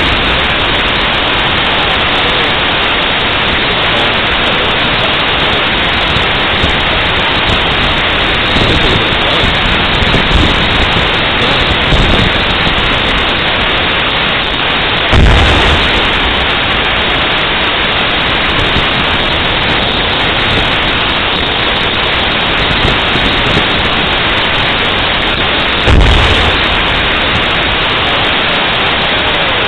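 Live fire from an M1A1 Abrams tank's 120 mm main gun: two heavy booms, about 15 and 26 seconds in, with a few fainter thuds between, over a steady loud hiss.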